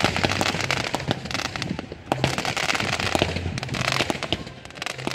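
Aerial fireworks bursting close overhead: dense crackling and popping from golden crackle-effect shells, with sharp bangs among them, coming in two waves.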